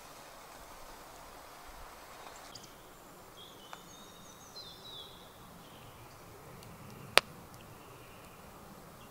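Quiet woodland night air with a bird giving a few short chirps about three to five seconds in. Later a wood fire burning in a small Petromax firebox stove gives a single sharp crack, the loudest sound here.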